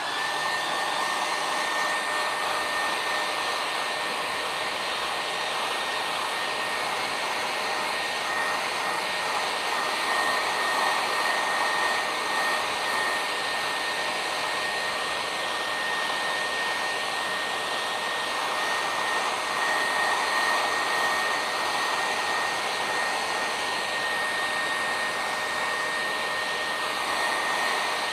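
Conair handheld hair dryer switched on: its motor whine rises and then holds steady over a rush of blown air. It is blowing on a freshly spray-painted stencil canvas to dry the paint.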